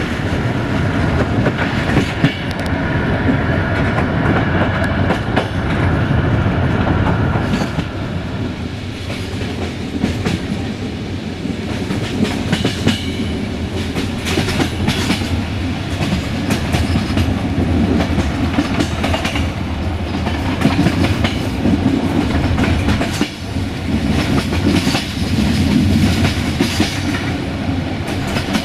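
Passenger train running along the line: steel wheels rolling on the rails with a steady rumble and the clickety-clack of wheels over rail joints.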